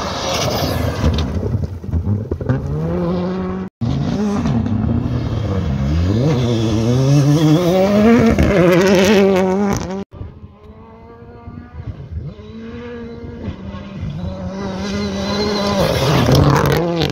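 Rally cars at speed on a gravel stage, their engines revving hard and dropping back through gear changes. The sound is cut in three pieces, at about 4 s and 10 s. The middle piece is the loudest, with the revs rising and falling. After the second cut it starts quieter and grows louder toward the end as a car comes close.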